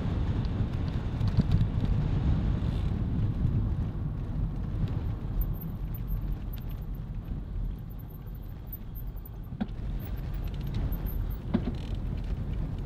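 Wind buffeting the microphone of a camera on a moving bicycle: a steady low rumble, with a couple of sharp clicks near the end.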